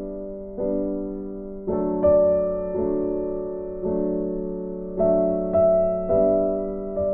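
Background music: slow chords struck on a keyboard, each fading away before the next one sounds.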